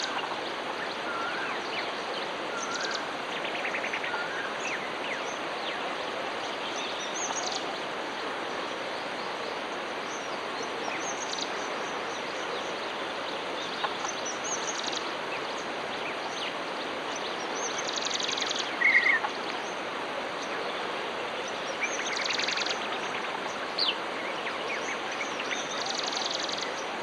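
Common babblers calling: scattered short chirps and brief buzzy, rattling trills every few seconds, with one louder call about two-thirds of the way in, over a steady background hiss.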